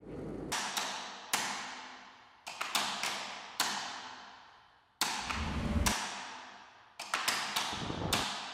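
Cinematic soundtrack percussion: a series of sharp struck hits in an uneven rhythm, each ringing out in a long reverberant tail, with a deep boom about five seconds in.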